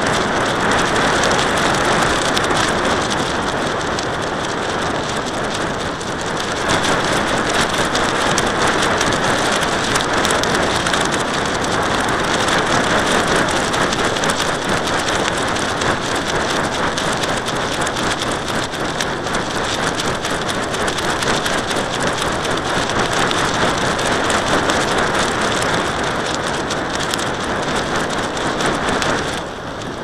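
Steady, crackling rush of wind buffeting the microphone of a kite-borne camera.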